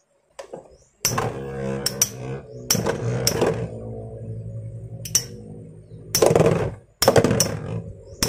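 Two Metal Fight Beyblades, Gravity Perseus and Rock Aries, spinning together in a plastic stadium. From about a second in there is a steady whirring hum, broken again and again by sharp clicks as the two tops' metal wheels strike each other.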